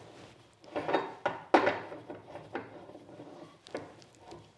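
Moxon vise hardware being fitted by hand: washers going onto the steel vise screws, with a string of light metal clinks and knocks against the wooden jaws.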